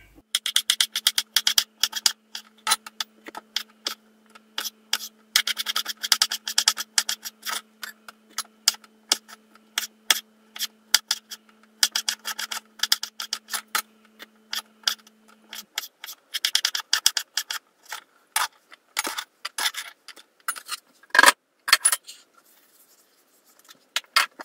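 A kitchen knife chopping pickled cucumbers on a wooden cutting board: fast runs of sharp taps, pausing now and then. A steady low hum underneath stops about two-thirds of the way through, and there are a few louder knocks near the end.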